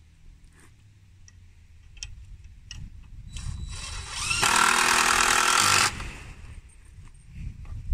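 Cordless drill working into a wooden railing: a short softer start, then one loud run with a steady motor whine lasting about a second and a half that stops abruptly. A few small handling clicks come before it.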